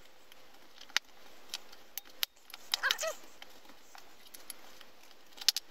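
Scattered light clicks and scrapes of a steel punch and a flat prying blade working against a Glock magazine's polymer baseplate as it is pried loose. There is a brief squeak about three seconds in and a quick run of clicks near the end.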